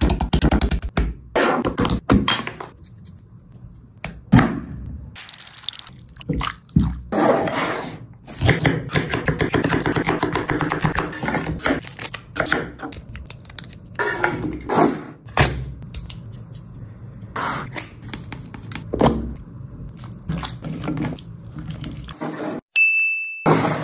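Close-up food-preparation sounds: raw chicken pieces handled in a glass bowl, the papery skin of a red onion peeled off and the onion cut with a knife on a wooden board, then hands squishing chicken pieces through a wet spice marinade. A brief steady high tone sounds near the end.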